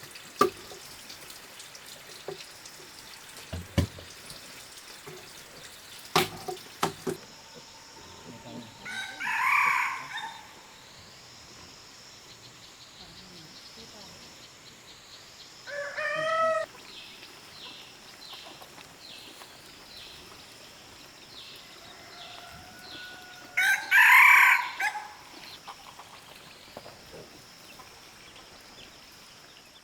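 Rooster crowing, about a third of the way in and again loudly near the end, with a shorter call in between. A few sharp knocks sound in the first several seconds.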